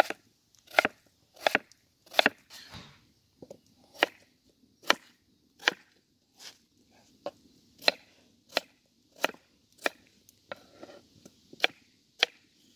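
Kitchen knife cutting through peeled potatoes and knocking on a wooden cutting board, a short sharp knock about one and a half times a second.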